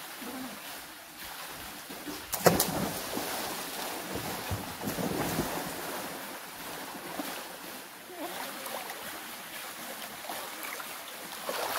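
A person dropping off a rope into a swimming pool with one loud splash about two and a half seconds in. Splashing in the water follows, over the steady pour of water running off a concrete slide into the pool.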